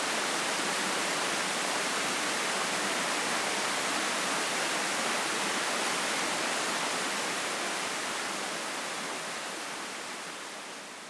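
Waterfall on a woodland brook, a steady rush of falling water that fades out gradually over the last few seconds.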